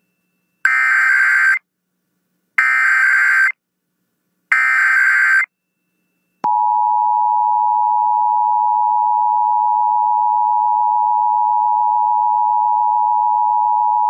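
Emergency Alert System Required Weekly Test: three one-second SAME digital header tone bursts, each followed by about a second of silence. Then, about six and a half seconds in, the steady two-tone EAS attention signal (853 and 960 Hz) starts.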